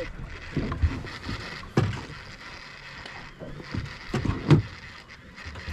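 Knocks and thumps of gear handled on a fishing boat, over a steady bed of wind and water noise. The loudest knock comes about four and a half seconds in.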